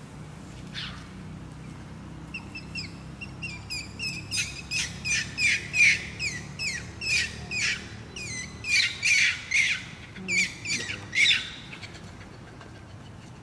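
A quick run of short, high chirping calls, each dropping in pitch, about three a second, starting about two seconds in, breaking off briefly near the middle and stopping a couple of seconds before the end.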